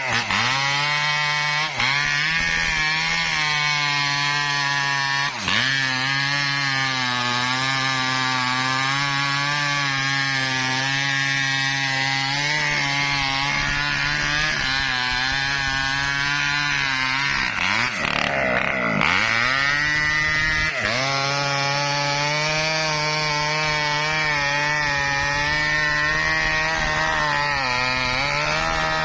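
Chainsaw running at high revs, cutting mahogany wood. Its pitch dips briefly about five seconds in, then sags for a couple of seconds around eighteen to twenty seconds in before climbing back.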